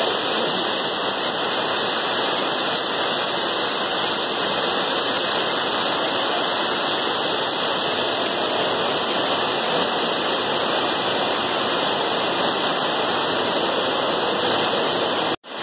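Steady rush of falling water from a waterfall, cutting out for an instant near the end.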